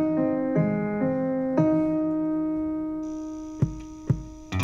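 Piano playing slow chords, the last one held and left to fade; two short knocks sound near the end before the full band comes back in.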